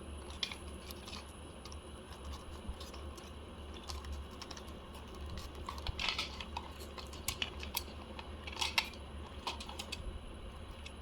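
Small plastic toy pieces clicking and tapping as they are handled, in irregular scattered clicks with brief clustered rattles about six seconds in and again near nine seconds.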